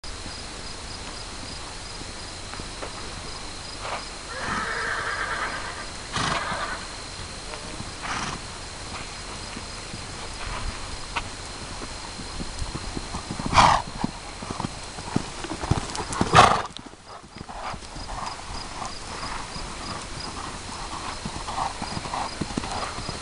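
Horse cantering on a sand arena, its hoofbeats in a regular rhythm that is plainest near the end. A short whinny comes about five seconds in, and two loud bursts of noise a little past the middle.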